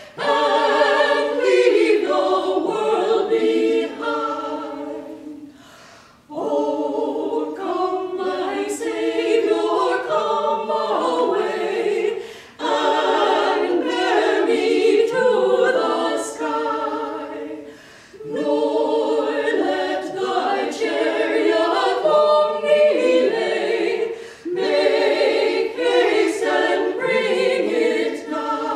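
Women's vocal quartet singing unaccompanied in harmony, in phrases of about six seconds with a short breath between each.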